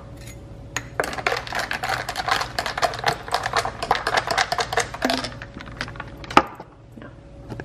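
Iced coffee being stirred in a glass with a metal stirrer, a quick run of clinks against the glass and ice for about four seconds. A single sharp clink follows near the end.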